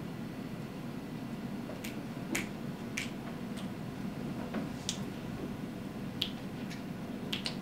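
Students snapping their fingers, several short sharp snaps at irregular intervals, over a steady low room hum.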